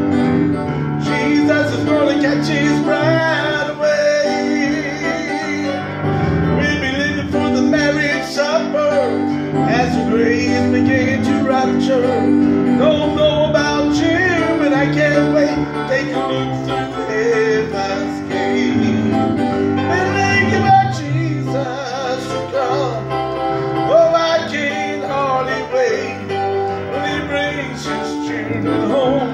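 Southern gospel song: a man singing over his own electronic keyboard accompaniment, with steady sustained chords beneath the voice.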